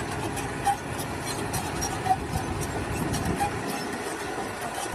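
Heavy construction machinery running: a steady engine rumble with scattered clanks and knocks.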